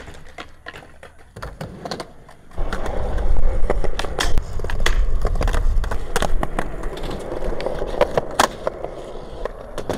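Skateboard wheels rolling on concrete, a steady low rumble that starts and gets loud a little over two seconds in, with frequent sharp clacks and clicks from the boards.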